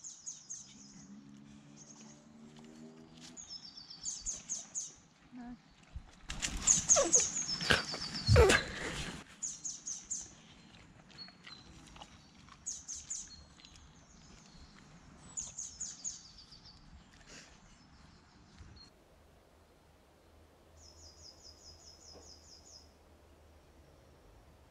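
Songbirds singing, short high chirping phrases every few seconds with a rapid trill near the end. About six seconds in, a much louder rough sound with sliding pitch lasts some three seconds.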